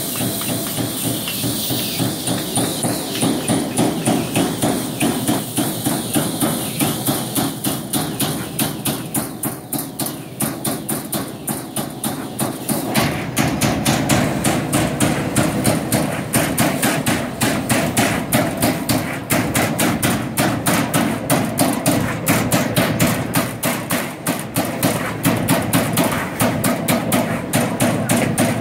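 Servo-driven CNC turret punch press punching holes in a steel sheet: a rapid, even run of sharp metallic punch strokes, several a second. It gets louder about halfway through.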